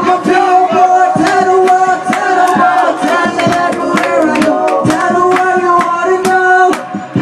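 A hip-hop song with sung vocals over a steady drum beat, played loud, with a man rapping along into a microphone.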